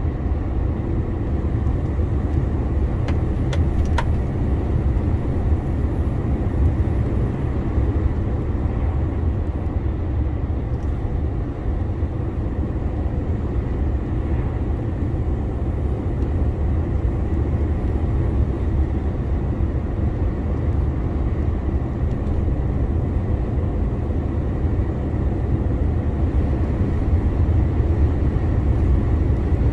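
2021 DAF CF 480 lorry under way: a steady low rumble of engine and road noise.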